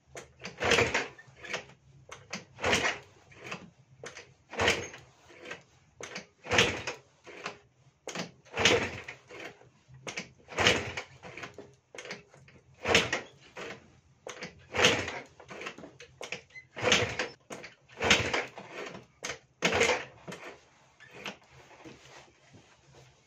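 Kick-starter of a Junak 806 50cc two-stroke scooter pumped about ten times, roughly every two seconds. Each kick is a short clatter as the engine turns over, and it does not fire.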